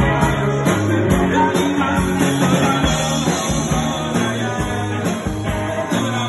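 Rock band playing: electric guitars and a drum kit, with a steady drum beat.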